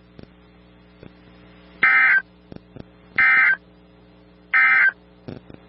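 Three short bursts of EAS SAME digital data tones, about 1.4 s apart: the end-of-message (NNNN) code sent three times to close the weather radio tornado warning.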